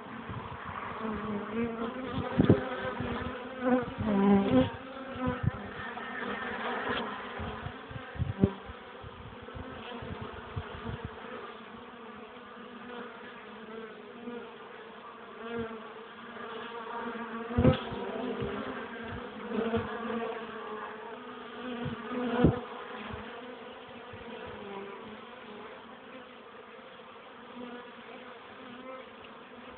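Honeybees buzzing at a hive entrance: a steady hum of many bees, with single bees growing louder as they pass close. A few sharp knocks stand out.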